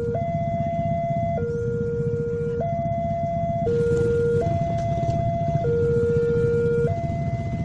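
Railway level-crossing warning alarm sounding a two-tone signal, a higher and a lower note alternating about once a second, warning of an approaching train. Underneath is the steady low rumble of motorcycle engines idling at the crossing.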